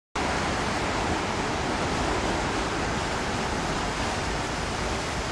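Steady rushing rumble of an approaching JR Freight EF81 electric locomotive and its container freight train, with no horn or distinct clicks.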